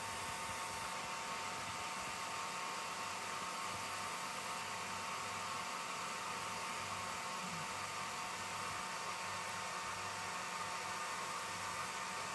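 Steady mechanical whir with a faint hum.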